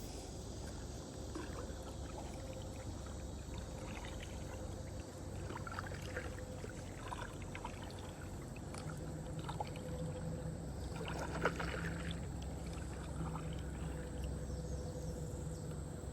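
Faint water sounds around a kayak on a river: trickling and dripping with scattered small splashes, a brief cluster of them about two-thirds of the way through.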